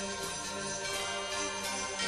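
Background music: an upbeat instrumental Christmas tune with jingle bells shaking on a steady beat.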